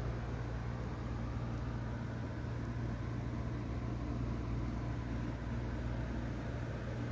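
Steady low hum under an even rush of noise, with no change in level.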